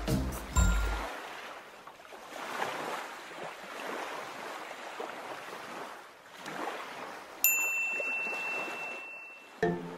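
Ocean waves washing in and out, swelling and fading every second or two. The last notes of music die away in the first second. A thin high steady tone cuts in about seven and a half seconds in, and music starts again just before the end.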